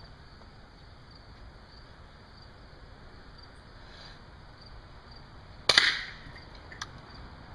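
A single shot from a Savage Stevens Model 300 bolt-action .22 firing a Colibri 20-grain round that uses only the primer to propel the bullet: one sharp, low-noise crack about six seconds in, with a brief ring after it. A couple of faint clicks follow near the end.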